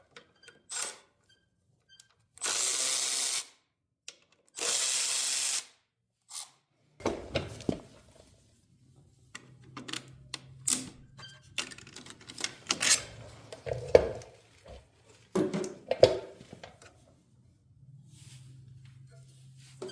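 Two one-second runs of a handheld power tool loosening fasteners on a small mower engine, followed by scattered clinks and knocks of tools and metal parts being handled.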